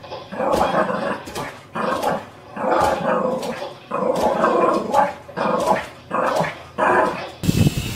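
Dog barking and growling in a run of short bursts, about one a second, ending abruptly near the end.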